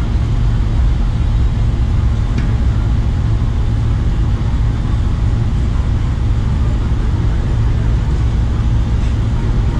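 Steady low rumble of outdoor background noise, even in level throughout, with a faint hiss above it.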